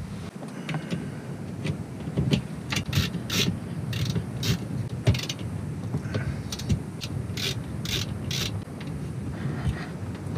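Screwdriver turning terminal screws on a wiring bus bar, with irregular sharp clicks and scraping of metal as ring-terminal wires are fastened, the clicks thickest in the middle.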